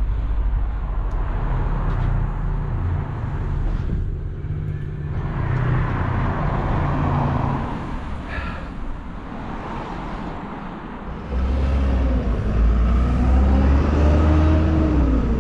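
Town-centre road traffic heard from a moving bicycle, under a low rumble of wind and road on the microphone that gets louder about eleven seconds in. Near the end an engine's pitch rises and falls.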